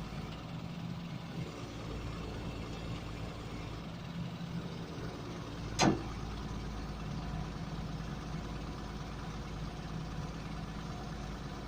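Engine of a Palfinger boom-crane truck running steadily, with one sharp knock about six seconds in.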